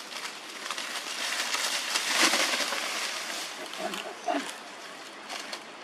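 Dry leaf litter rustling and crackling, loudest about two seconds in, then a couple of short low calls about four seconds in.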